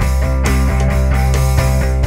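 Background instrumental music with sustained chords and a steady beat.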